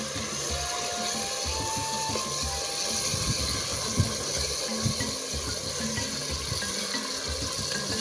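Wooden spatula stirring and scraping around an aluminium pot of boiling stew, with three short knocks against the pot in the middle.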